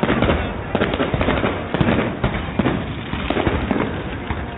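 Fireworks going off: a dense run of bangs and crackles, one after another.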